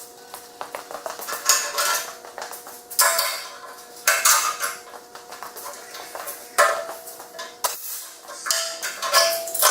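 Steel clanking and clattering in sudden, irregular bursts about a second or two apart, over a faint steady tone.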